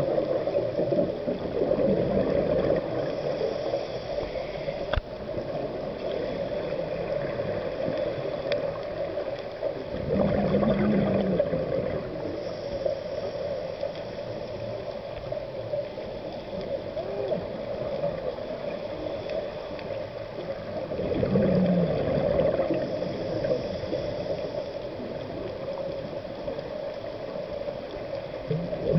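Scuba regulator exhaust bubbles heard underwater: a diver's exhaled air gurgling out in bursts about every ten seconds, over a steady watery hiss.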